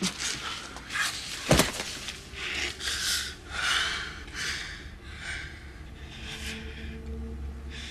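A person gasping and breathing hard in distress, in short breathy bursts that come about once a second and fade toward the end. A sharp click sounds about one and a half seconds in.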